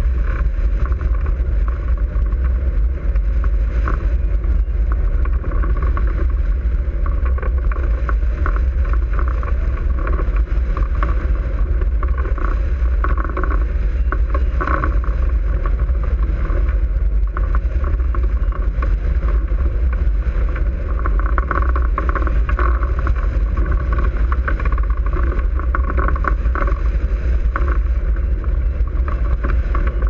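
Airflow buffeting the microphone of a camera mounted on a hang glider in flight: a loud, steady, low wind rumble.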